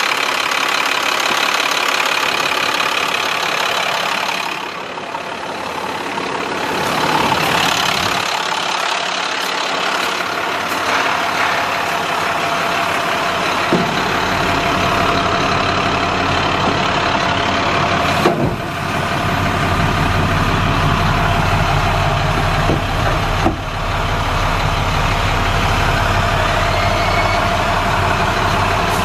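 International 4300 truck's diesel engine idling steadily, heard at the open engine bay and then from inside the cab, where its low hum is stronger. A few brief knocks sound in the second half.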